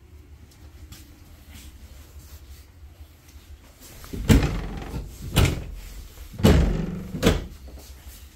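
Pantry cabinet doors being pulled open: four loud clacks and knocks, about a second apart, starting about four seconds in.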